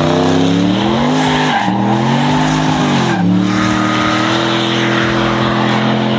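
A drag-racing engine at full throttle, its revs climbing and dropping sharply twice as it shifts up through the gears, then holding high and steady.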